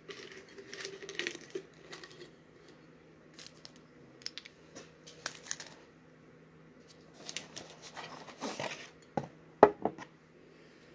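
Handling noises from unpacking: a glass jar lightly clinked and tapped, and packaging rustling and crinkling. A few sharp knocks come near the end.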